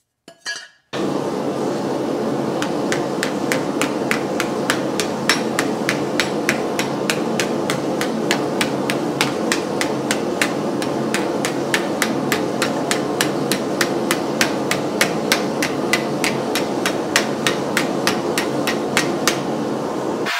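Hammer blows on a red-hot 16 gauge steel disc, dishing it into an eye bolt clamped in a vise: quick, even strikes about three a second over a steady noise.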